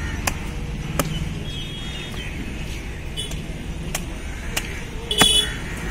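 Knife striking a wooden chopping block, about five sharp irregular knocks, as stingray flesh is cut. A steady low rumble of traffic runs underneath, and a brief shrill sound near the end is the loudest thing.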